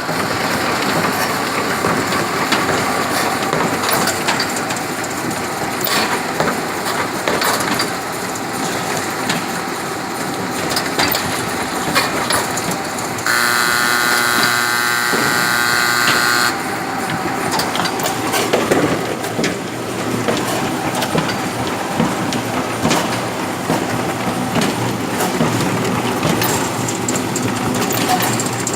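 Semi-automatic folder-gluer (carton box-gluing machine) running: a steady mechanical clatter with scattered clicks. For about three seconds midway a steady pitched whine joins in.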